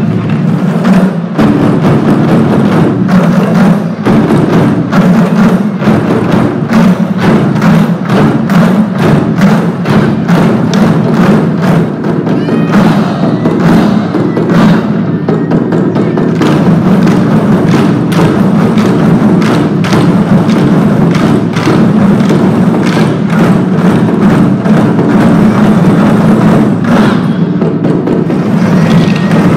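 A large ensemble of red Chinese drums played together with sticks: a loud, dense, continuous drumming rhythm.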